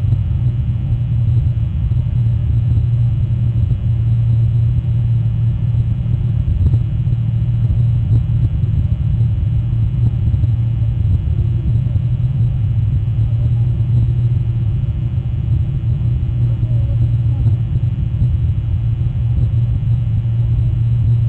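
A steady low rumble that stays even throughout, with no distinct events.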